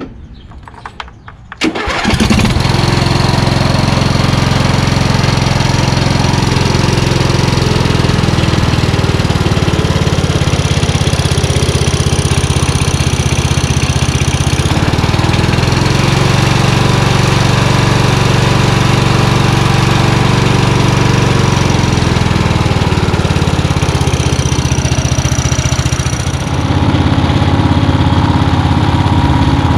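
A 15.5 HP Briggs & Stratton engine on an MTD Yard-Man lawn tractor starts about two seconds in, on full choke and full throttle, and catches readily now that a bad ground connection has been fixed. It then runs steadily, its speed dipping and rising a few times, and its tone changes near the end.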